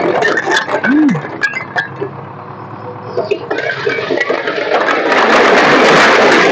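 A load of red clay bricks tipping off the back of a raised tractor trolley. Scattered clatter of falling bricks comes first; then, from about halfway, a loud continuous rushing clatter as the whole load slides off.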